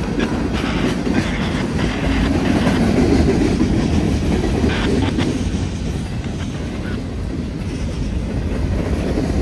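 Freight cars of a long freight train rolling slowly past: a steady rumble of steel wheels on rail, with scattered clicks as wheels cross rail joints.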